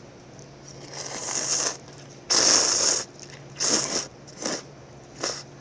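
A person slurping noodles from a cup of spicy broth: a rising slurp about a second in, a longer, louder one in the middle, then three shorter slurps. A low steady hum sits underneath.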